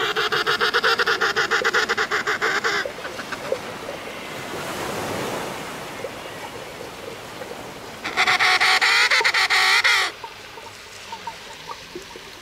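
African penguins braying: two long, rapidly pulsed donkey-like calls, the first lasting about three seconds, the second starting about eight seconds in and lasting about two. A softer rushing noise lies between them.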